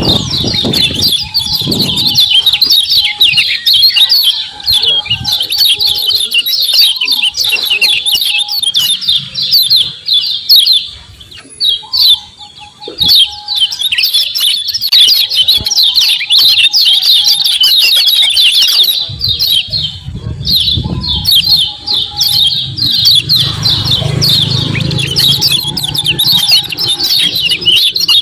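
Kecial kuning white-eye song: a fast, high, continuous chatter of chirps, the excited 'ciak ciak' call used as a lure to set other kecial birds singing, breaking off briefly about ten seconds in and again near twenty seconds.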